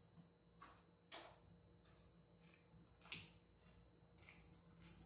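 Faint, scattered clicks and rustles of electrical wires being handled and bent at a ceiling junction box, with two sharper ticks about a second in and about three seconds in.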